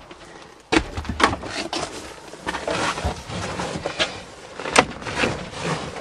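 Irregular clicks, knocks and rustling from the door and interior of a Chrysler van being handled, starting with a sharp knock just under a second in.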